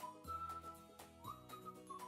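Background stock music: a high whistle-like melody that slides up into its notes, over a bass line and light ticking percussion.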